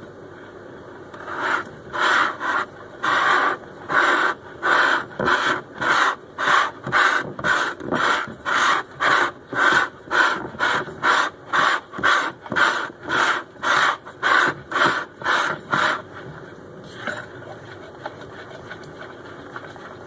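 Batter being beaten by hand in a bowl with a fork or whisk: rhythmic strokes about two a second through the wet flour, egg and milk batter, stopping about sixteen seconds in, as it is mixed smooth to a pancake-batter consistency.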